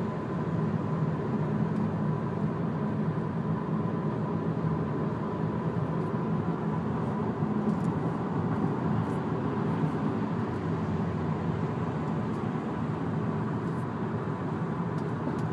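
Steady road and engine noise inside a car cruising at freeway speed: a constant low rumble of tyres and engine with a faint steady whine above it.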